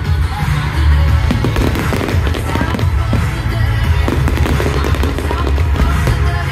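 Fireworks bursting and crackling in quick succession, with loud music playing over them.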